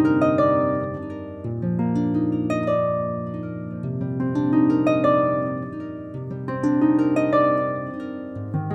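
Background music: gentle plucked harp-like notes in flowing, swelling phrases.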